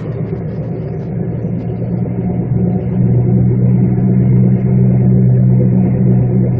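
Loud steady drone from the badly worn bearings of a 1999 Chevrolet Malibu at about 35 mph, swelling about three seconds in and then holding; the bearings are close to failing.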